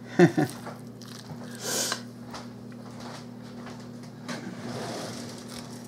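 Quiet kitchen with a steady low electrical hum, a short voice-like sound just after the start, and a brief soft rustle about two seconds in.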